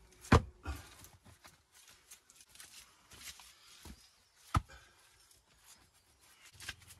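Walling stones knocking together and scraping on soil and rubble as a large base stone is bedded by hand. Two sharp stone-on-stone knocks, the louder just after the start and another about four and a half seconds in, with small clicks and scrapes between.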